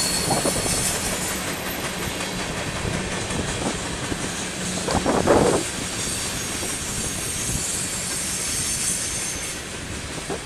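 Freight cars of a Union Pacific manifest train rolling past on a curve: a steady rumble and clatter of wheels on the rails, with a brief louder burst about five seconds in.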